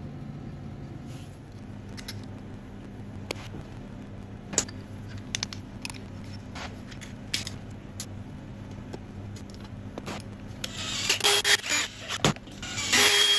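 Steel parts handled and fitted together by hand: light metallic clicks and taps as a machined shaft goes into a steel sleeve, then louder scraping and rattling near the end, over a steady low background hum.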